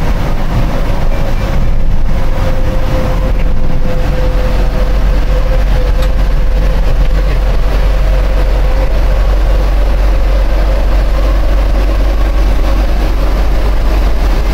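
Engine and road noise inside the cab of a moving coach van: a steady drone over a heavy low rumble.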